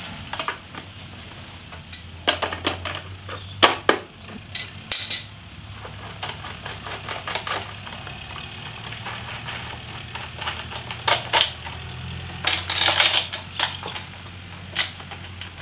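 Irregular clicks and metallic clinks of a hand tool and a plastic bracket being handled while motorcycle turn-signal indicators are unscrewed from it, with a low steady hum underneath.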